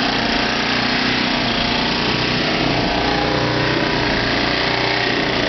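Small 1,000-watt portable generator engine running steadily under load, powering the electric motor of a pump jack.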